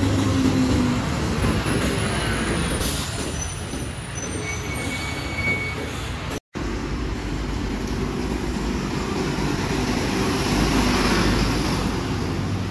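City buses' diesel engines running in street traffic as they approach, pull away and pass close. A short hiss comes about three seconds in, followed by a thin high squeal lasting a few seconds. Later a swell in the noise marks a bus passing near.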